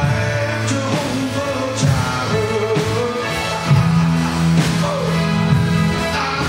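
Live church praise music: a man singing over his own drum kit with cymbal hits, backed by held low bass notes from the band.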